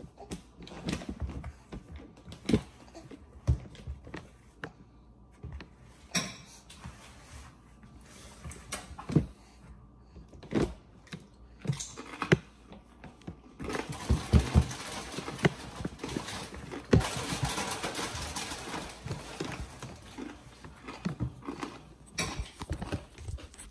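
Spatula scraping and knocking against a mixing bowl as toppings are folded into thick cookie batter: irregular knocks throughout, with a longer spell of steady scraping about two-thirds of the way through.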